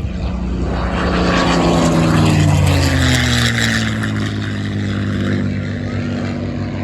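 P-51C Mustang's Packard-built Merlin V12 engine in a low flyby, swelling to its loudest two to three seconds in, then falling in pitch as it passes and draws away.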